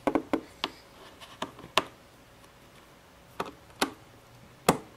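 Scattered clicks and taps of a hand fumbling with plastic cable plugs at the back of an external hard drive, with a sharper knock near the end.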